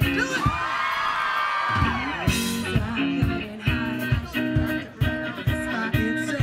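Live pop-rock band with electric guitar, bass, drums and singers. The drums drop out under a held note for the first two seconds, then the full band comes back in on a steady beat.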